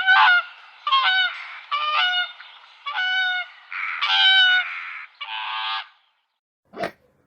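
Swan giving a series of about six loud, nasal honks, roughly one a second. Near the end, after a short pause, comes a single brief thump.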